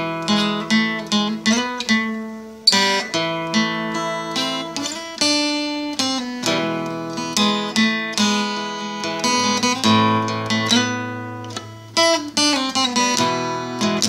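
Acoustic guitar playing an instrumental passage, picked and strummed notes ringing out and fading one after another in a steady rhythm.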